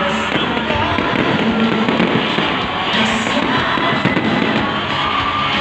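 Aerial fireworks shells bursting and crackling in quick succession, with music playing along.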